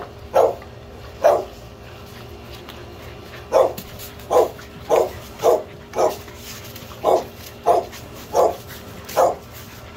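Pit bull puppies barking in short, separate barks, roughly one every half second to second, with a pause of about two seconds after the first few.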